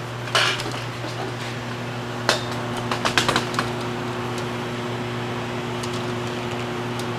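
Heavy steel workpieces being handled and set down: a clank about half a second in, another about two seconds in, then a quick run of metallic clinks, over a steady electrical hum.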